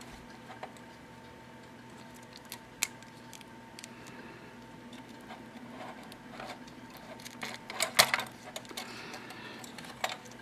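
Small clicks and ticks of plastic and metal as a 3.5-inch floppy drive's read/write head assembly is worked loose by hand from its press fit, with a sharper cluster of clicks about eight seconds in. A faint steady hum runs underneath.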